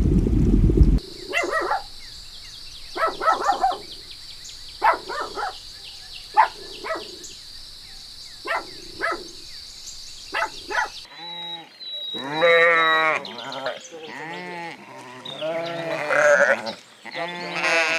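Goats or sheep bleating. First come short, separate calls over a steady high-pitched whine. After a cut about eleven seconds in come several longer, quavering bleats. A low rumble stops abruptly about a second in.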